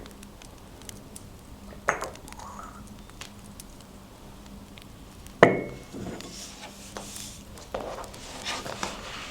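Hard objects set down on a desk: a light knock about two seconds in, then a louder clink with a short ring a little past halfway, followed by paper rustling. Faint fire crackling underneath.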